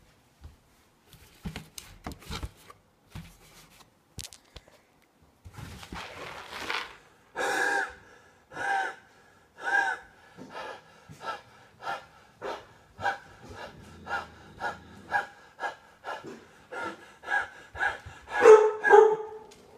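Heavy, rapid breathing into an empty cardboard cereal box held over the face, after a few light clicks of handling the box. Each huff takes on the same hollow tone of the box, about one a second at first and speeding up to about two a second, the loudest few near the end.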